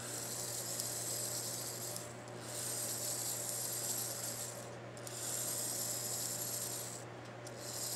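Bare cuckoo clock movement running its cuckoo strike train with a light mechanical whir, pausing briefly about every two and a half seconds as it works the bellows wires up and down for each cuckoo.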